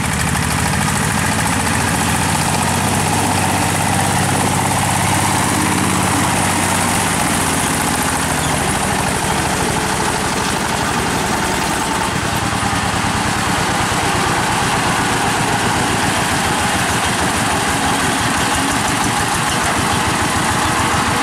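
Single-cylinder Chinese diesel shallow engine of a homemade lotahamba mini truck running under a heavy load as the truck drives. It keeps up a steady, rapid, even chugging beat.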